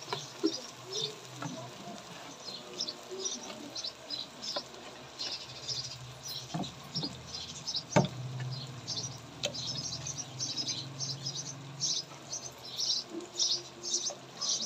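Small birds chirping over and over, short high calls all through, with a few sharp knocks in the middle, the loudest about eight seconds in. Underneath, a tomato-onion masala simmering in a clay pot over a wood fire.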